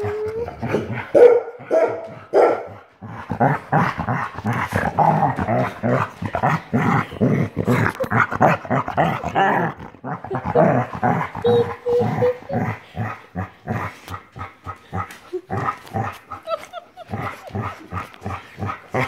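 Two dogs play-fighting at close range: rapid, continuous growling with short yips and barks mixed in.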